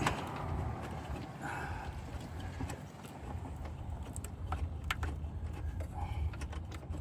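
Scattered light metallic clicks and taps of hand tools and parts being handled in an engine bay, over a steady low rumble.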